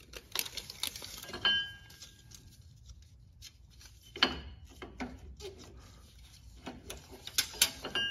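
Scattered light metallic clicks and knocks from sway bar hardware and tools being handled under the car, with a short ringing clink about a second and a half in and another around four seconds.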